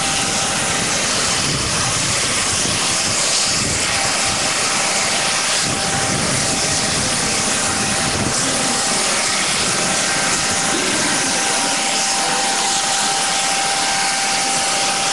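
Steady aircraft engine noise, an even rush with a constant thin whine running through it.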